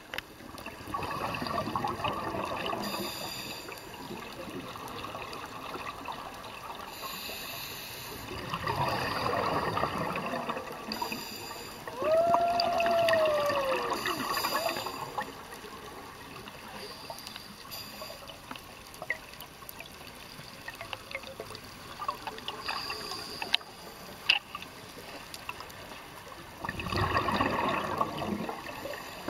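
Scuba diver breathing through a regulator underwater: bubbly exhalations every few seconds, with hissing inhalations between them. About twelve seconds in there is a short tone that rises and falls, and a few sharp clicks come later.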